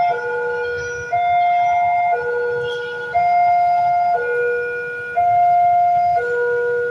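Railway level-crossing warning alarm sounding a two-tone high-low signal, each tone held about a second and repeating steadily, warning that a train is approaching.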